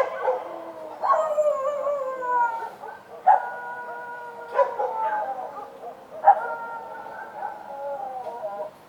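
Street dogs howling: three long howls, each starting sharply and sliding slowly down in pitch, with a short bark near the start.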